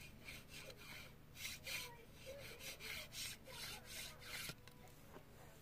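Scratchy rubbing strokes repeated about two to three times a second, stopping shortly before the end.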